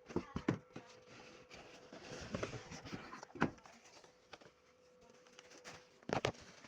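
Handling noises from unpacking a boxed standing fan: sharp knocks and thumps with rustling between them. There are two knocks close together right at the start, a rustle and a knock around the middle, and a double thump near the end, over a faint steady hum.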